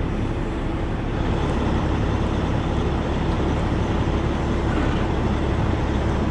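A vehicle engine running steadily with a low, even rumble, getting slightly louder about a second in.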